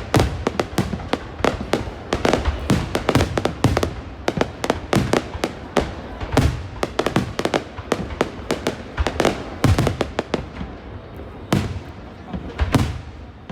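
Fireworks going off in quick volleys: many sharp bangs and crackles close together, thinning out to a few separate bangs near the end.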